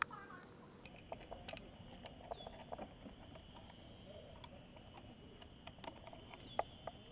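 Faint, irregular clicks and light knocks of a metal carabiner and climbing hardware being handled.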